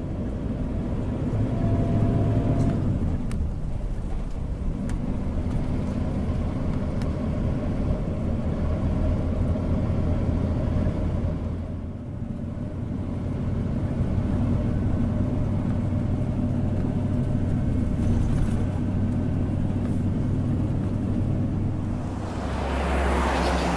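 Road vehicle running, a steady low engine and road rumble that dips briefly about halfway through and turns to louder hiss near the end.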